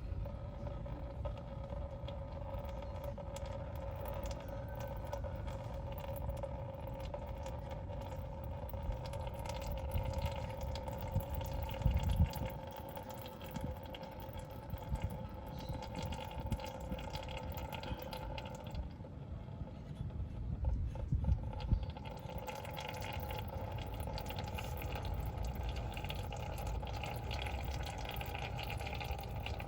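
Liquid running steadily into a container, as when old engine oil drains from the sump into a drain pan, with a couple of low thumps midway.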